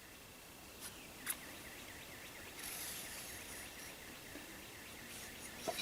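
Faint outdoor background: a low steady hiss with faint rapid chirping, broken by a couple of light clicks about a second in and another near the end.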